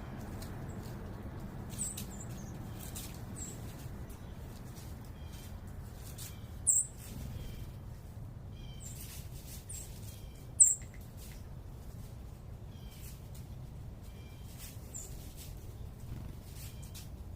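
Small birds giving short, very high chirps and call notes, two of them louder about seven and eleven seconds in, with scattered light ticks over a steady low urban rumble.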